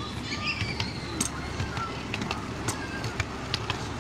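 Miniature railway train running along its track: a steady low rumble with irregular sharp clicks from the wheels on the rails.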